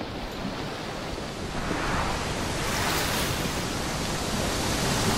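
Ocean-surf sound effect: a steady rush of breaking waves that grows louder about two seconds in.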